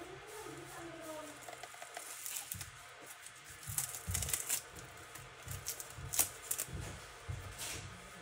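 A scalpel blade and probe scraping and clicking against a small white container, in irregular scrapes and sharp taps that come thickest in the second half.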